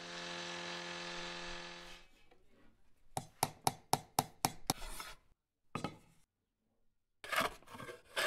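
Small table saw running steadily as a wooden slat is cut, then cutting off about two seconds in. After a pause come a quick run of short scraping strokes of a hand tool on wood, and near the end longer strokes of a wooden hand plane along a board's edge.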